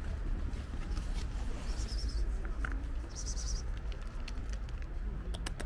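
Outdoor background: a steady low rumble, with two short high chirps about two and three seconds in and a few sharp clicks near the end.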